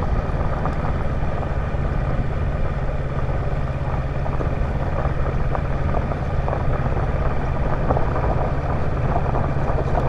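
Kawasaki Versys 650's parallel-twin engine running steadily on the move, mixed with tyre noise over a rough gravel road.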